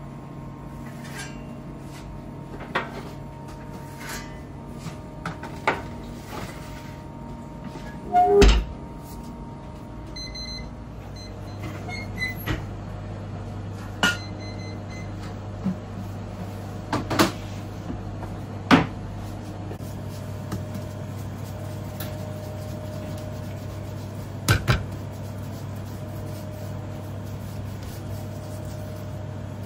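Steady hum of bakery kitchen equipment with scattered knocks and clatter of metal baking trays and utensils, the loudest a heavy thump about eight seconds in.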